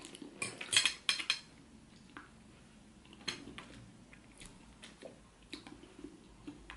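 Metal fork and spoon clinking and scraping against a ceramic plate: a quick run of sharp clinks about a second in, then scattered lighter taps.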